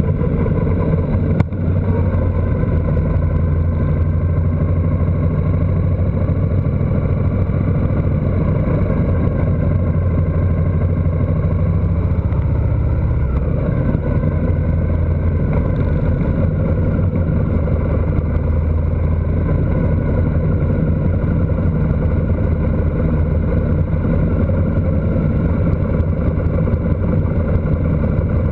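Motorcycle engine running steadily while riding, with wind noise on the mounted camera. The engine note changes about 13 seconds in, and there is a brief knock about a second and a half in.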